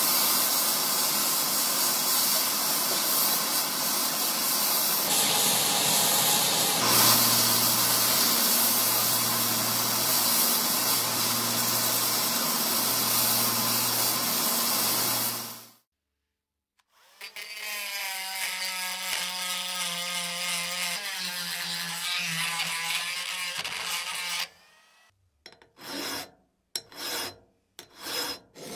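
Power tools working an old sugar grinder. First comes a long stretch of dense abrasive noise, with a low hum joining about seven seconds in and breaking off briefly several times. After a short break, a power tool runs with a pitch that slowly falls. Near the end come short hand-filing strokes, about two a second.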